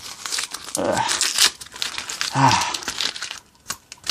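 Adhesive tape being peeled and ripped off the hands, with crinkling and tearing. It is broken twice by a short low cry, about a second in and again midway.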